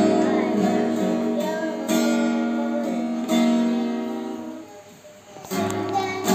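Acoustic guitar being strummed: a few chords struck a second or two apart and left to ring, the sound dying away about five seconds in before another chord is strummed.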